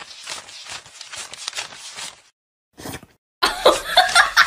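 Paper banknotes being counted by hand: a quick, irregular run of crisp paper flicks that stops about two seconds in. A louder voice-like sound starts near the end.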